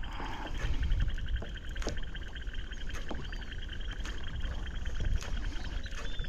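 Wind buffeting the microphone, a heavy uneven rumble, over a steady, fast-pulsing high chorus of calling animals, with scattered light clicks.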